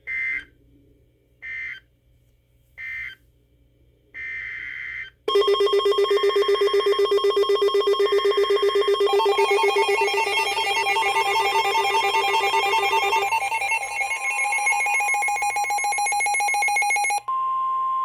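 Emergency Alert System data bursts: several short screechy digital tone bursts about a second apart, marking the end of one warning and the header of the next. Then comes a loud, rapidly pulsing electronic alarm of several tones that shifts pitch twice, and near the end a steady single alert tone.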